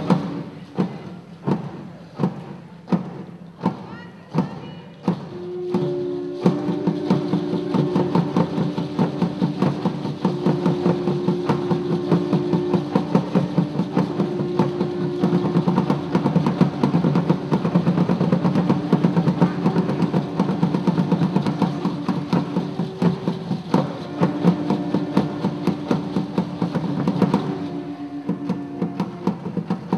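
Live drums playing a steady rhythm, with separate, spaced strokes at first that thicken into dense drumming about five seconds in, where voices join singing a chant in long held notes.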